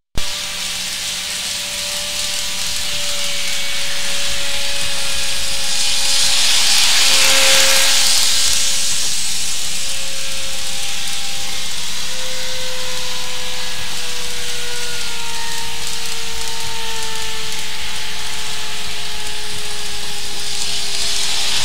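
N-scale model electric train running on its track: a steady hiss with faint whining tones that slowly fall in pitch. Loudest about seven seconds in.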